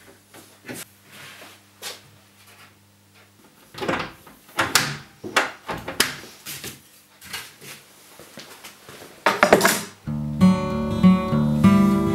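Scattered knocks and clicks of cabinet doors and concealed hinges being fitted and handled. About ten seconds in, acoustic guitar music comes in and takes over.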